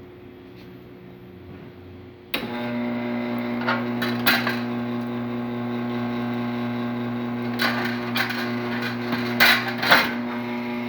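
Lelit Bianca espresso machine's rotary pump switching on about two seconds in and running with a steady hum, the machine vibrating. Several sharp clatters of metal parts over the hum, as the drip tray is taken out.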